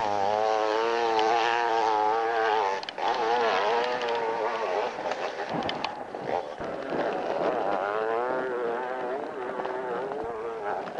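Motorcycle engine revving hard on a steep hillclimb, its pitch wavering up and down as the rider works the throttle, with a brief drop about three seconds in.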